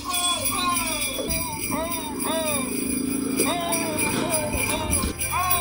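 Jingle bells ringing steadily over a tune of short notes that rise and fall, Christmas-style music.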